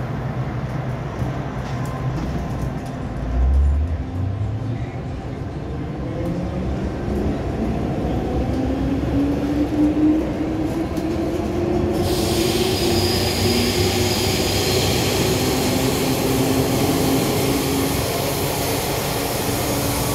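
MTR Island Line M-Train moving off from a station, its traction motors whining and rising in pitch as it accelerates, then holding steady. A low thump comes about three and a half seconds in.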